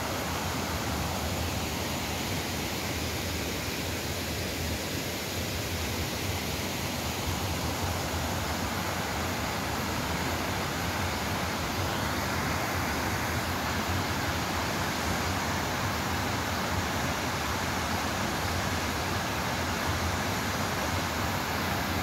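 Small rainforest waterfall tumbling into a pool, a steady rushing of water that holds an even level throughout.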